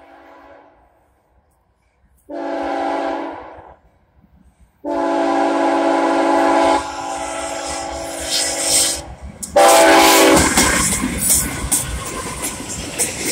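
CSX diesel locomotive air horn sounding the crossing signal. A blast fades out near the start, then comes a blast of about a second and a half, a long one and a short one. Then the lead locomotives of a loaded coal train pass close by, with engine noise and wheels clattering over the rail joints.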